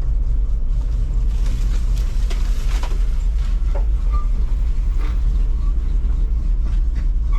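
Farm truck driving slowly over rough ground: a steady low rumble from the engine and drivetrain, with scattered rattles and knocks as it bounces along.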